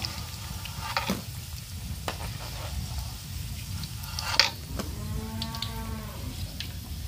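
Oil sizzling in a pan on a small stove as noodle nuggets fry, with a few sharp clinks of a utensil against the pan. About five seconds in, a short low drawn-out call rises and falls.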